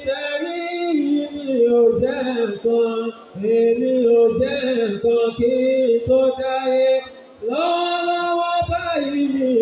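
A man chanting in a sung, melodic style into a microphone, with long held notes and brief pauses for breath, and one long drawn-out note near the end.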